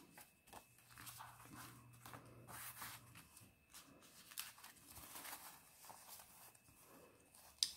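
Paper banknotes rustling faintly as a stack of bills is handled and fanned through, in short irregular flicks, with a sharp tap near the end.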